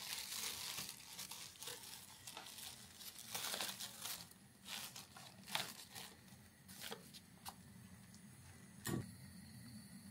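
Faint rustling and crinkling, with scattered light clicks and a soft knock near the end.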